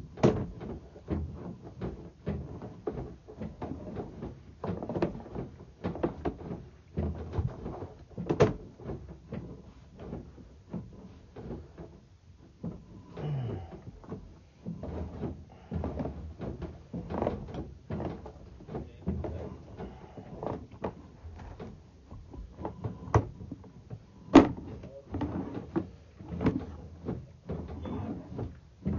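Sewer inspection camera's push cable and camera head clattering and knocking as they are moved through the pipe: an irregular run of clunks and knocks, a few a second, with a couple of sharper, louder knocks.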